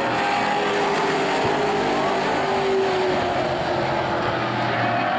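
Several stock-car engines running hard as a pack of race cars laps the oval. The engine pitch holds steady with slight rises and falls.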